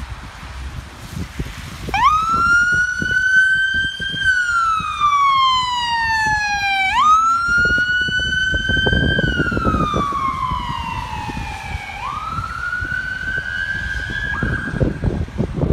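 Emergency ambulance siren switched on about two seconds in, sounding a slow wail that rises and falls about every five seconds, three sweeps in all, before changing near the end. Wind rumbles on the microphone underneath.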